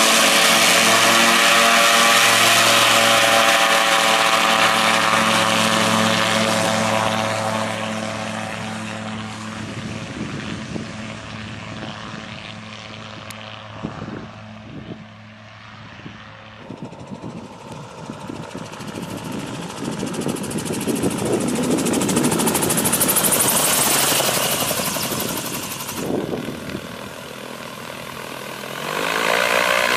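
Autogyro's engine and propeller running at power, its steady note fading as the machine moves away, then swelling again. Shortly before the end a steady engine note from close by sets in.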